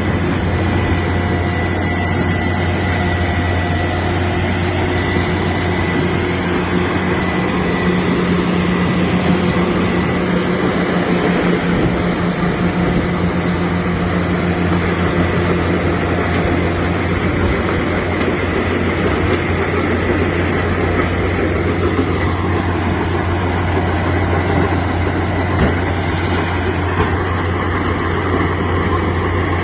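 Metso Lokotrack LT200HPS mobile cone crushing plant running: a loud, steady mechanical din with a constant low hum.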